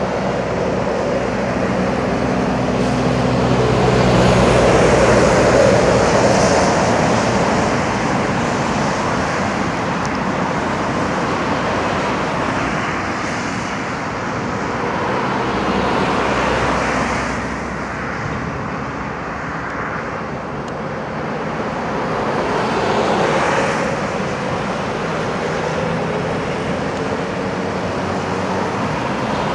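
Lorries and cars driving round a roundabout: heavy diesel engines and tyre noise, swelling as vehicles pass close, loudest about five seconds in and again around 16 and 23 seconds.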